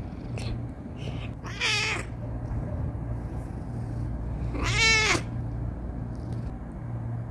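Persian cat meowing twice: two short calls that rise and fall in pitch, the second louder, over a low steady rumble.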